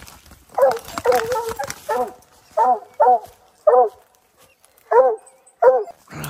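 Hunting dogs barking treed at a possum: a quick run of barks, then single barks every half second or so with a short lull near the middle. Leaves and brush crackle at the start.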